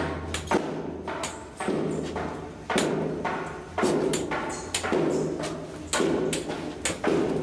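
A slow series of heavy thuds, roughly one a second and sometimes in close pairs, each ringing out briefly over a steady low hum.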